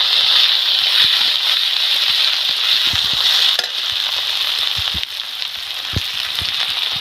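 Chopped onions and ginger-garlic paste sizzling in hot oil in a kadai, stirred with a long-handled flat spatula that knocks and scrapes against the pan now and then. The sizzle drops a little about halfway through.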